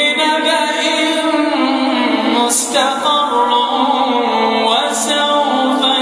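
A man reciting the Quran in a melodic chant, unaccompanied, drawing out long held notes that bend slowly in pitch, with brief breaks between phrases.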